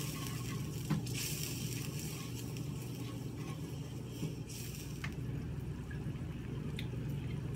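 Sauce simmering and sizzling in a stainless steel frying pan while it is stirred with a wooden spoon, with a few light knocks of the spoon on the pan. A steady low hum runs underneath.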